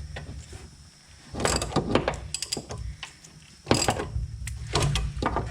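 Ratchet wrench clicking in three short runs as it works a rear sway bar link nut.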